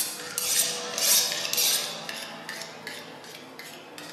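Metallic clattering and rattling in several short bursts, the three loudest in the first two seconds and fainter ones after.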